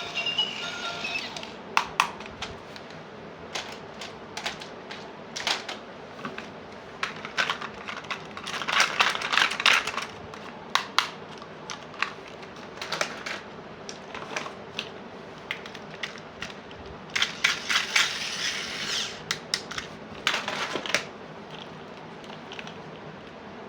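Small plastic toy pieces being handled, giving irregular clicks and taps with a few brief scraping or rustling stretches.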